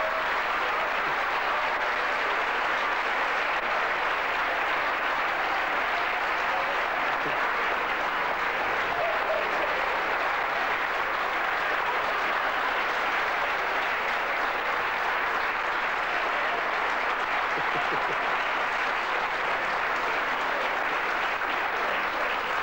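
Studio audience applauding, a steady dense clapping that goes on at an even level for over twenty seconds.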